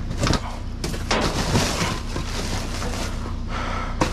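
Rummaging through boxes and discarded items in a trash pile: continuous rustling with a few sharp knocks as things are moved, over a steady low hum.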